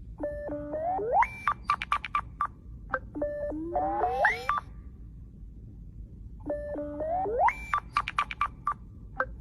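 Nothing Phone ringtone: a glitchy electronic phrase of stepped beeps, rising glides and a rapid run of clicks, in two short parts, played again about six seconds later.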